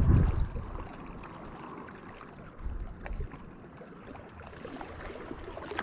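Wind buffeting the microphone, easing off within the first second, then small waves lapping along the shoreline.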